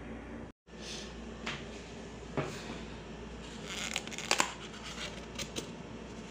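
Foam takeout container being handled and its lid opened: scattered short scrapes and clicks, the loudest cluster about four seconds in, over a steady room hum.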